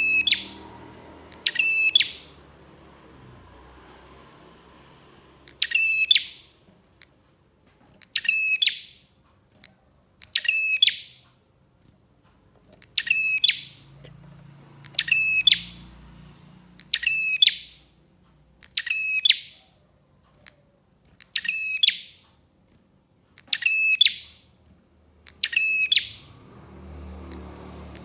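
Prinia (prenjak) song: a short, loud chirping phrase repeated about every two seconds, a dozen times, with a longer pause a few seconds in.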